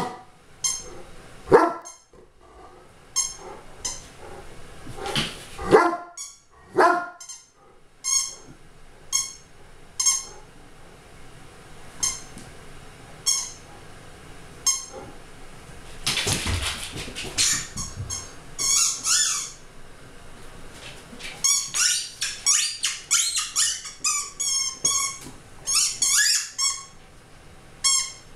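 Dog barking and yelping in play: short, loud, high-pitched calls, about one a second at first, then in quick runs through the second half.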